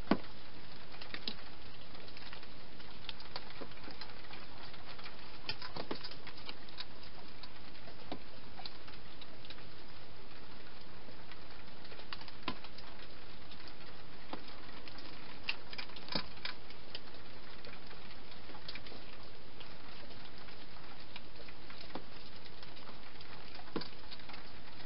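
Wild hedgehog feeding inside a clear plastic feeding box: irregular crunching clicks and ticks as it chews dry food, a few louder knocks, over a steady hiss.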